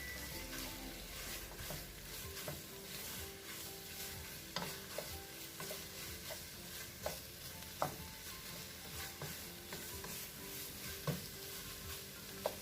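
Onion and cuttlefish sizzling steadily in hot oil in a pan while being stirred, with occasional sharp clicks of the utensil against the pan.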